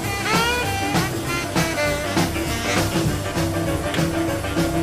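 Background music: an up-tempo blues/swing-style song, with a drum kit keeping a steady beat under gliding instrument lines.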